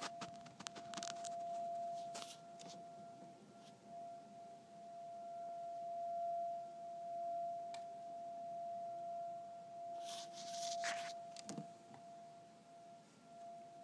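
A single steady, high-pitched tone, like a pure hum, that swells and fades gently in loudness and has no identified source; the recorder heard it coming from the sky. Brief handling clicks and rustles come at the start and again about ten seconds in.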